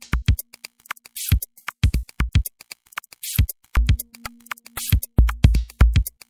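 Electronic background music with a drum-machine beat: deep kick drum hits, sharp clicks and short hissing hits, over a low held tone that comes and goes.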